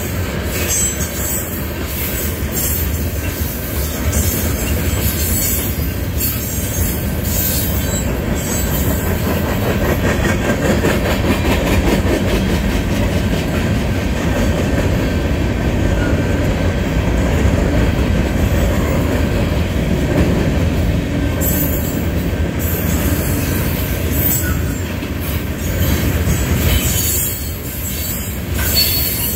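Freight train's covered hopper cars rolling past at steady speed: a continuous rumble of steel wheels on rail, with rhythmic clacking over rail joints and sharper clicks and knocks from the car couplings and trucks.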